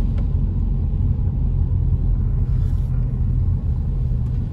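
Steady low rumble of a car driving on a paved road, heard from inside the cabin: engine and tyre noise, with no change in pace.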